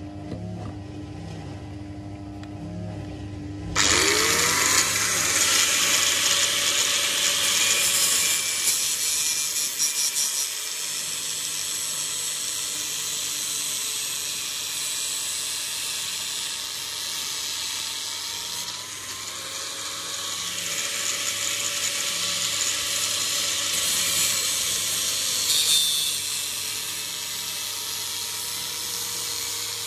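Electric grinder motor running with a low hum, then about four seconds in a knife blade is put to the wheel and a loud, steady grinding noise sets in, shifting slightly in loudness as the blade is worked.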